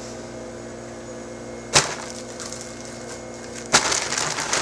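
A single sharp crack about two seconds in, then a dense run of crinkling and rustling near the end as hands rummage in a paper bag.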